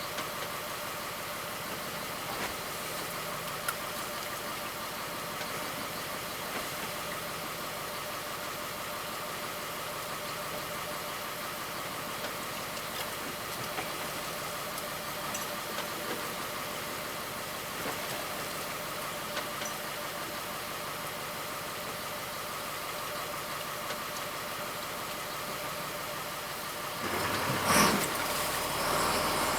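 Fishing boat's engine running steadily with an even hum and a few faint knocks; near the end a louder rush of noise comes in.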